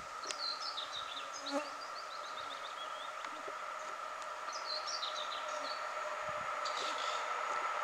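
Steady high hum of an approaching EU07 electric locomotive and its intermodal train, still far off and growing slowly louder. Birds chirp over it about a second in and again about five seconds in.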